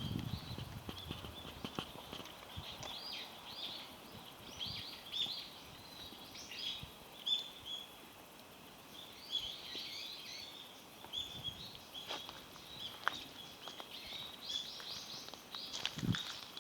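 Small birds chirping: many short, high calls that sweep quickly up and down, repeated through most of the stretch, over outdoor background noise, with a few soft knocks and thumps near the end.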